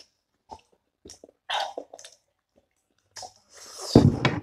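Eating and mouth noises over chili-hot chicken feet: a few soft lip smacks, a short hissing breath about one and a half seconds in, then a loud rush of breath near the end, a reaction to the chili heat.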